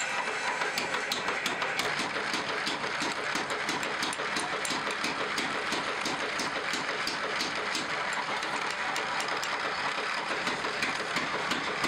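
Drill press running, its bit boring through the wooden handle scale on a meat cleaver's tang: a steady whirring noise with many quick, irregular clicks.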